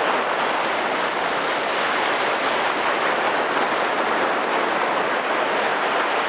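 Steady hiss of surf washing onto a sandy beach.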